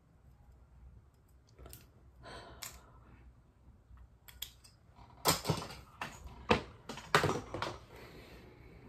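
Clear plastic claw hair clips clicking and rattling as they are unclipped from the hair and handled, with a run of louder scrapes and knocks about five to eight seconds in.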